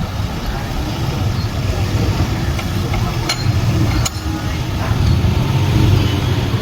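Komatsu D31P crawler bulldozer's diesel engine running steadily, with a couple of sharp metallic clanks about three and four seconds in.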